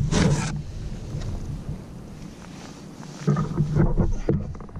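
Handling noise on a plastic kayak as a just-landed speckled trout and tackle are dealt with: a short rush of noise at the start, then a cluster of knocks and clunks about three seconds in, over a low wind rumble on the microphone.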